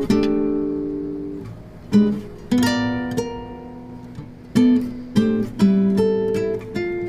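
Background music: acoustic guitar strummed and plucked in chords, each ringing out and fading before the next.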